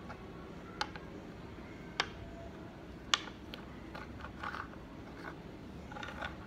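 Dominoes being slid around and set down on a wooden tabletop: a few sharp clicks about a second apart, the loudest about three seconds in, then lighter taps and short scraping, over a low steady hum.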